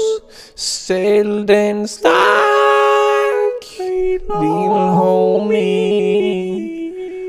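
Male singing in long held notes, phrase by phrase, with short breaks between the phrases.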